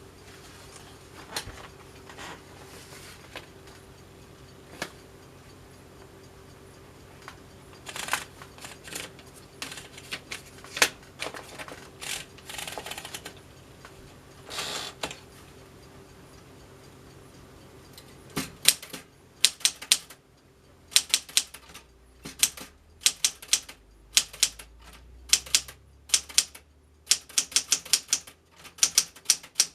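Smith-Corona Galaxie Twelve manual portable typewriter in use: scattered single key strikes and a few longer mechanical rasps at first, then from a little past halfway quick runs of sharp typebar strikes in bursts. A faint steady hum sits under the first half and stops.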